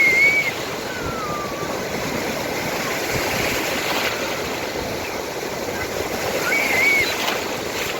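Sea waves washing onto the shore: a steady rushing surf noise. A few brief high-pitched chirps sound over it near the start and again near the end.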